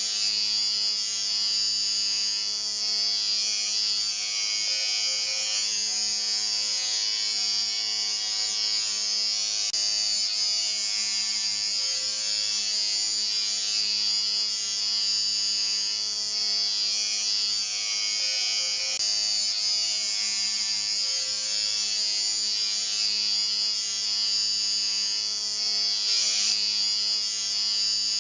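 Electric shaver running continuously: a steady buzz with a strong high hiss over a low hum, its level wavering only slightly.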